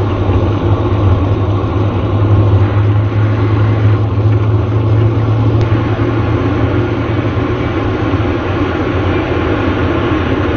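Airliner jet engine running with a loud, steady, deep rumble.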